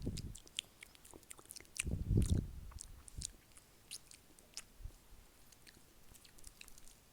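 ASMR mouth sounds close to the microphone: a rapid scatter of wet tongue and lip clicks. About two seconds in, a louder low muffled rumble lasts about half a second.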